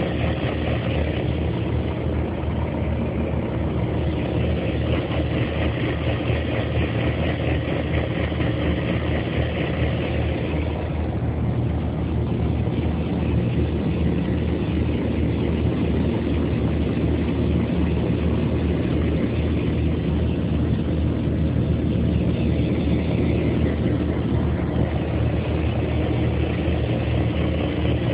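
Industrial agitator running: a steady mechanical drone with a low hum underneath.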